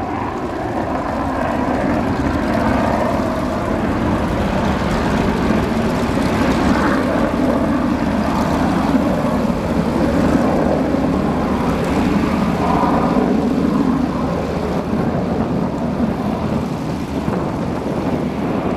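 F-15C Eagle fighter jet climbing away after takeoff in afterburner: loud, steady jet noise from its twin afterburning turbofans with a heavy low rumble, easing slightly over the last few seconds.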